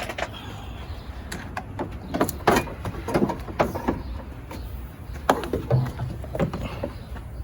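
Irregular clicks, clinks and knocks of hand tools and parts being handled at an engine bay, over a steady low rumble.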